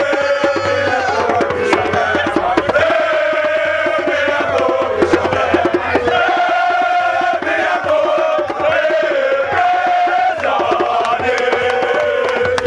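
A crowd of men singing their school song together in a loud group chant, held notes and all, with sharp handclaps throughout.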